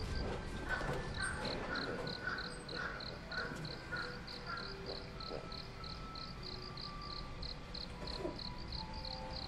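An insect chirping steadily, high and evenly pulsed at about four chirps a second. A quick series of lower calls runs through the first few seconds, with scattered short tones after it.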